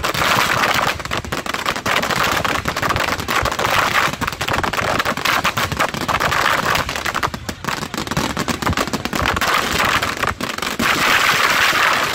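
Fireworks going off in a dense barrage: rapid, overlapping bangs and crackling with hardly a break.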